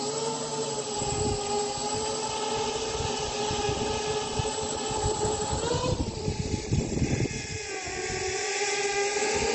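FPV quadcopter's four T-Motor F2203.5 1500kv brushless motors spinning tri-blade props at mid throttle: a steady whine with a rough, uneven low rumble underneath. These are the weird mid-throttle sounds the pilot asks about as a possible tuning issue. About six seconds in the pitch rises briefly, then the whine drops away, and it comes back about two seconds later.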